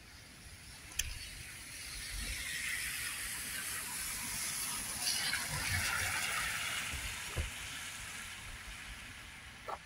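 Tyres hissing on a rain-wet road as a car passes, swelling for a few seconds and then fading away. A sharp click comes about a second in.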